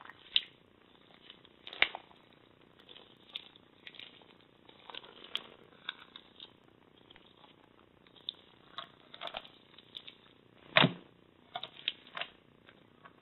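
Macaroni-and-cheese slime being squeezed and stretched by hand, giving irregular small crackles and squelching pops. The loudest pop comes a little past two-thirds of the way through.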